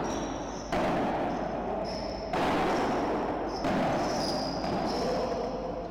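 Padel ball rally: the ball struck by paddles and bouncing off the court, with three sharp hits spaced about a second and a half apart, each ringing on in the enclosed glass-walled court.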